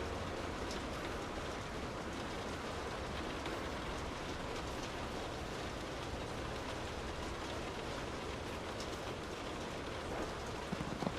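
Steady rain heard from indoors, an even hiss with scattered individual drops ticking. A few sharper knocks come near the end.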